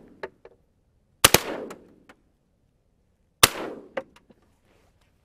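Shotgun blasts: two in quick succession about a second in and one more about two seconds later, each trailing off in a rolling echo, with a few small clicks between them.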